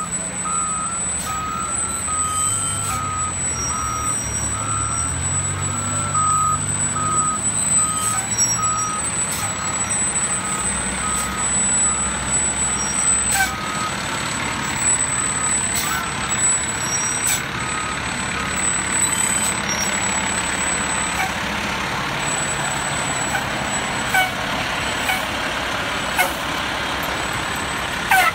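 Fire engine's diesel running with its back-up alarm beeping steadily, about two beeps a second, loud for the first half and fading after that. A few short sharp hisses or knocks come over the engine drone.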